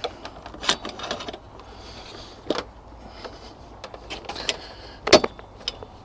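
Scattered metallic clicks and knocks from a manual motorcycle tyre-changing tool and the tyre bead being worked back onto the wheel rim. The loudest knock comes about five seconds in.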